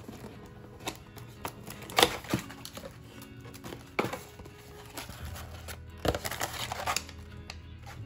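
Hands handling a cardboard box of drip-bag coffee and pulling out a foil sachet: a few sharp taps and paper rustles, the loudest about two seconds in, and a run of crinkling between six and seven seconds. Soft background music plays under it.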